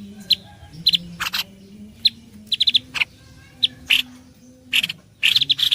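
Recorded bird-luring call: short sharp bird chirps, some single and some in quick runs of three or four, with brief gaps between. A dense, fast trill starts up again near the end.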